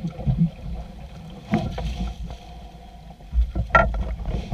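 Water sloshing and slapping against a small outrigger boat's hull, with wind buffeting the microphone. Two short, sharp knocks or splashes stand out, about a second and a half in and near the end.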